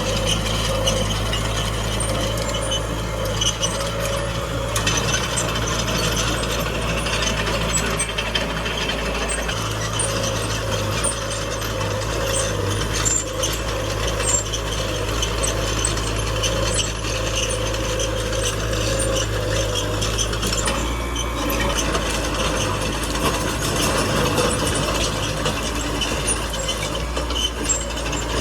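Small crawler bulldozer working: its diesel engine runs with a steady low drone under a dense, continuous clatter of the steel tracks.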